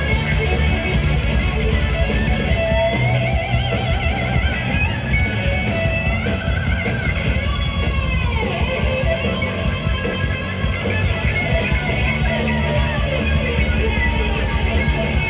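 A rock band playing live through a loud concert PA, heard from within the crowd: electric guitar over bass and drums, with pitch-bending lead lines about six to eight seconds in.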